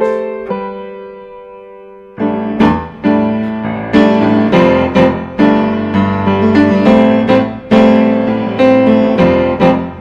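Piano music: a held chord fades for about two seconds, then piano notes and chords are struck about once or twice a second.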